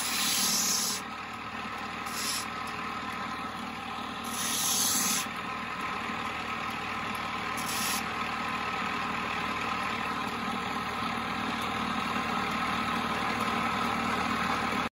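Motor-driven lapidary grinding wheel running with a steady hum, as a quartz crystal point is shaped on the spinning disc. There are short hissing scrapes from the crystal on the wheel, four of them in the first eight seconds, the longest about four seconds in.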